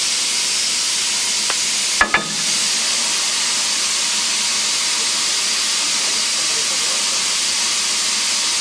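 Steady hiss of steam from the standing steam locomotive 'The Green Knight', a BR Standard Class 4MT 4-6-0, with two sharp knocks close together about two seconds in.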